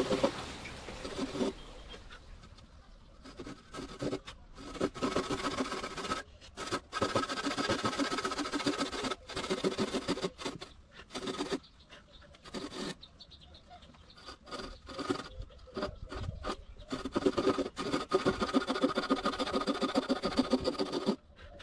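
Rasping, scraping strokes of a tool working wood, coming in stretches of about a second with short pauses between them.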